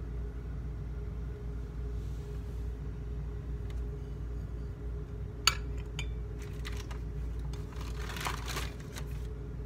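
Handling of small china plates over a steady low hum. A sharp click like a plate knocking comes about halfway through, a lighter one follows just after, and there is a brief rustle of handling near the end as one plate is put down and the next picked up.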